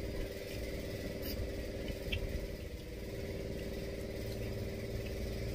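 Steady low hum of a running motor, with a couple of faint clicks.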